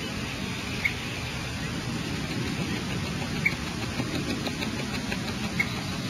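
Steady hiss and low rumble from the nest camera's microphone, with three brief high chirps or ticks: about a second in, midway, and near the end.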